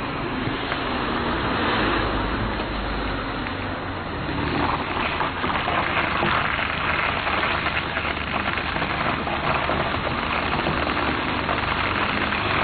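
Car tyres rolling slowly over gravel, a continuous crunching and crackling of stones under the tread, with a low engine hum beneath; it grows a little louder about four seconds in.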